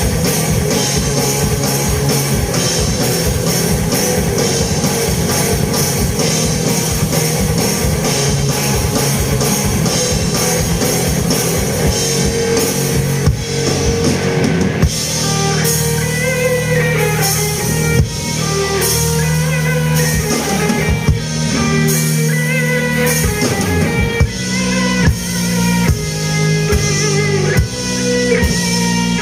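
Rock band playing an instrumental passage on guitar and drum kit. A dense, driving beat for the first half thins, about halfway through, into held guitar notes over sparser drum hits.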